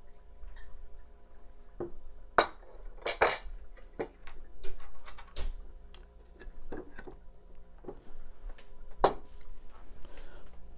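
Scattered clinks and knocks of a glass sauce bottle and a plate being handled and set down on a wooden table, the sharpest cluster about two to three seconds in and one more knock near the end.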